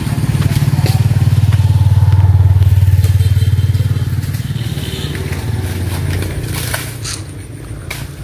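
A motorbike engine passing by, a low puttering that swells to its loudest a few seconds in and then fades away. A few sharp knocks near the end.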